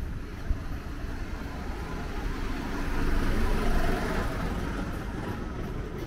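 Street traffic: a motor vehicle passes, its sound swelling and fading about three to four seconds in over a steady low rumble. A short sharp click about half a second in.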